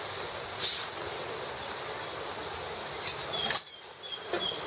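Steady hiss of rain falling, which cuts off abruptly about three and a half seconds in. Short repeated bird chirps come near the end.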